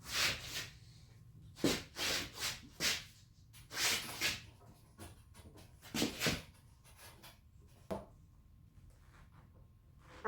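A run of brief, irregular rubbing and scraping noises with a few light knocks, like objects being handled and shifted.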